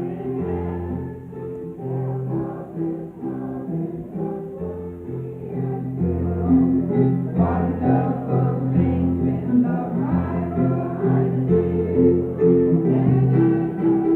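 A gathering singing a hymn together in chorus, with instrumental accompaniment and a steady bass line; the singing grows louder about six seconds in.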